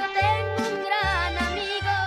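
Mariachi band playing the instrumental close of the song: violins with vibrato over deep bass notes about twice a second.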